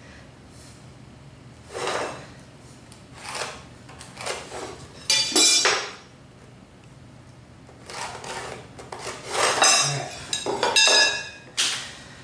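A metal square and straightedge handled on plywood: several short scraping strokes, then a run of sharp metallic clinks that ring briefly, most of them clustered toward the end.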